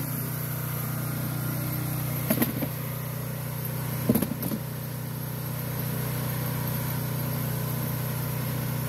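Small gas engine, likely powering a log splitter, running steadily, with two sharp knocks about two and four seconds in.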